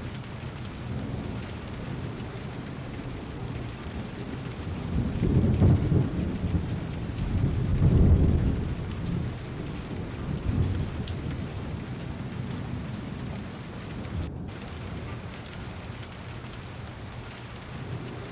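Heavy rain falling steadily on a car's window and body, with thunder rumbling low through it, swelling to a peak about five to six seconds in and again, loudest, about eight seconds in. A split-second drop-out breaks the rain near the end.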